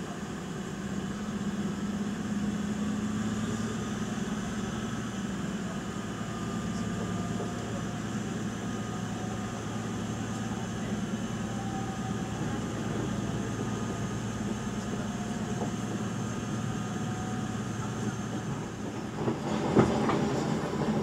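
Commuter train running, heard from inside the carriage: a steady low hum and rolling noise that swells in the first couple of seconds as it picks up speed, with a short burst of wheel knocks near the end.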